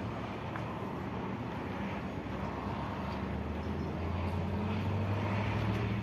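Steady low engine hum that grows a little louder toward the end.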